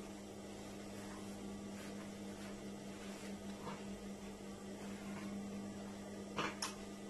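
Steady low electrical hum, with a couple of short rustles of fabric being handled near the end.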